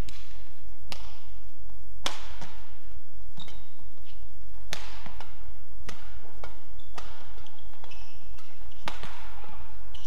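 Badminton rackets striking a shuttlecock back and forth in a rally, a sharp hit every second or two, with short high squeaks of shoes on the court mat and a steady low hum underneath.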